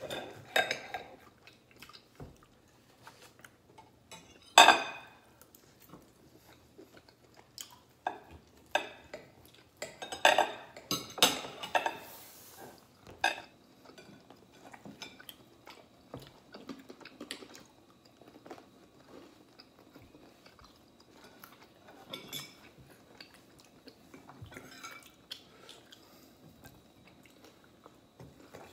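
Steel knives and forks clinking and scraping on ceramic dinner plates as steak is cut and eaten. The clinks and scrapes are irregular, with one loud clatter about five seconds in and a busier run around ten to thirteen seconds in.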